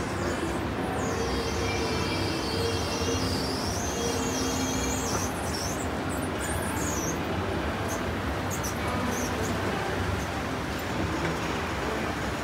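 Escalator running: a steady mechanical rumble with a faint, high, wavering squeal through the first half, against the general hum of a busy shopping mall.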